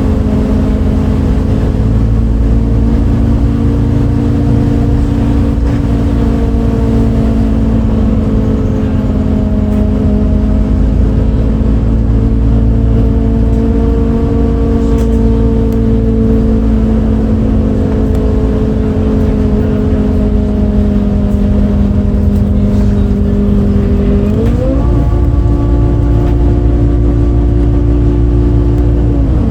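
MAN Lion's City A37 bus's MAN D0836 six-cylinder diesel, heard from on board, pulling steadily with its pitch drifting slowly. About 24 seconds in the revs jump sharply higher as the ZF Ecomat automatic gearbox kicks down a gear, and drop back near the end as it shifts up again. This engine had an unusual sound that day, never heard from a MAN before.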